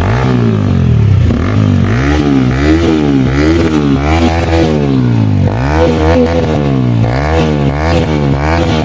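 Motorcycle with an aftermarket Akrapovic exhaust revved in repeated quick throttle blips, the engine note rising and falling over and over.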